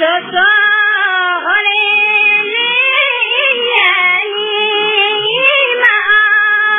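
Music: a song with a high-pitched voice singing a continuous, wavering melody.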